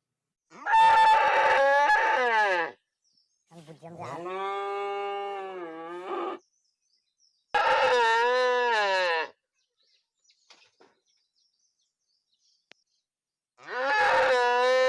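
Cow mooing: four separate moos, each one to three seconds long, with the pitch bending within each call and silence between them. The last moo starts near the end.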